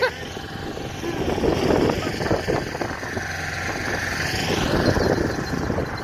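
Blizzard wind buffeting the phone's microphone: a rough, uneven rumble that rises and falls with the gusts.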